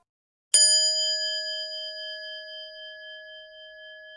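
A single bell strike about half a second in, ringing on with several clear tones and slowly fading.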